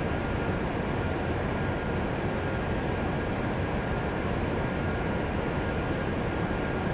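Steady whir of a stationary E7 series Shinkansen car's on-board equipment and cooling fans while it stands at the platform, with a faint steady whine.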